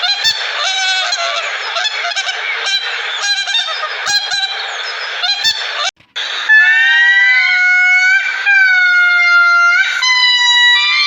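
Birds calling, in two clips. First comes a noisy stretch of many short overlapping calls. After a cut about six seconds in, a series of long, drawn-out pitched calls follows, each about a second long.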